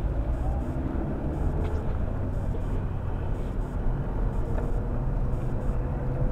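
Car driving through town, heard from inside the cabin through a dashcam microphone: a steady low engine and road rumble.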